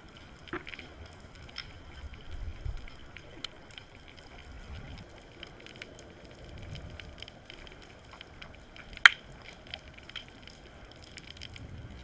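Underwater ambience picked up by a camera in its housing: scattered faint clicks and crackles over a low, uneven rumble of moving water, with one sharp, loud click about nine seconds in.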